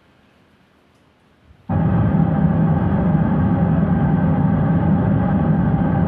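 A loud, steady drone made of several layered tones switches on suddenly about two seconds in and holds.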